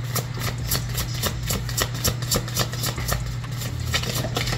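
Oracle cards being shuffled by hand: a quick run of light clicks and taps, about five a second, over a steady low hum.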